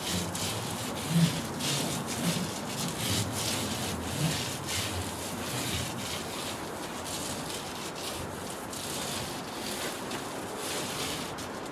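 Sheet of foil insulation rustling and rubbing as it is handled and pressed by hand against the inside of a van's metal roof. A few dull thuds come in the first half, the loudest about a second in.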